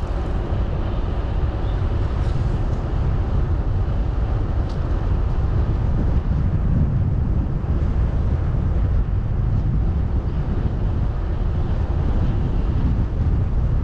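Steady wind rumble on the microphone of a camera riding along on a moving bicycle.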